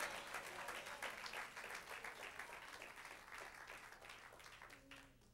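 Congregation applauding, the clapping thinning out and fading away over about five seconds.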